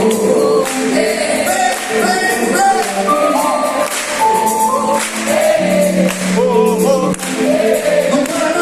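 A live gospel group singing in several voices over a band, with high cymbal or tambourine shimmer throughout.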